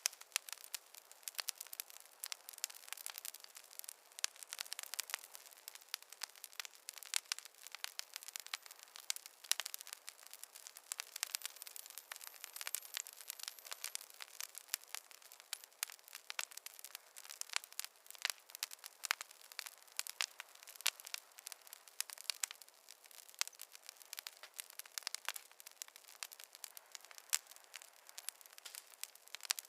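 Fireplace fire crackling: a dense, irregular stream of small pops and snaps, with no low rumble underneath.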